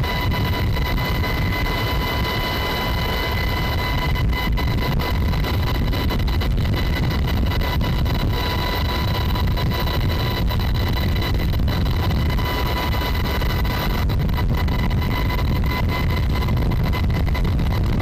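UH-60 Black Hawk helicopter in flight, heard from the cabin with the side door open: a loud, steady rumble of rotors and engines with a constant high whine over it.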